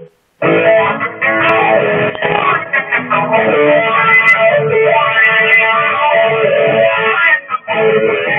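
Electric guitar playing, starting about half a second in, with a brief break near the end.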